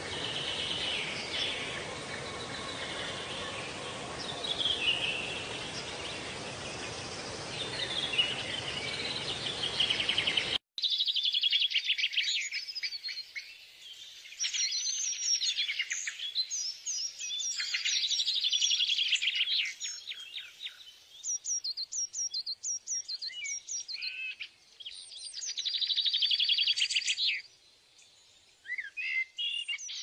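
Small birds chirping and singing over a steady hiss for about the first ten seconds. Then an abrupt switch to a cleaner birdsong track of rapid trills and high chirps, coming in bursts of a few seconds each.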